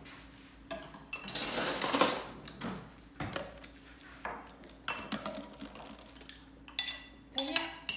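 Metal spoons clinking and scraping against ceramic bowls as two children eat, with sharp clinks every second or so and a longer scrape about a second in.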